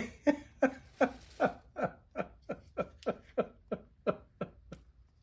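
A man laughing: a long run of about a dozen short 'ha's, evenly spaced and each dropping in pitch, that grow fainter toward the end.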